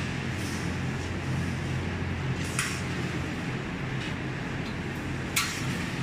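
Two sharp metallic clicks, about two and a half seconds apart, as a wire grid panel is hooked onto a slotted steel rack frame, over a steady low hum.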